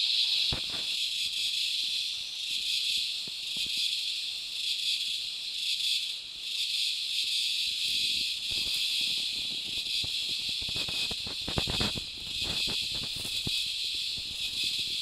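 Dense insect chorus: a loud, steady shrill hiss that fills the air without a break. A few low thuds and rustles come in around ten to twelve seconds in.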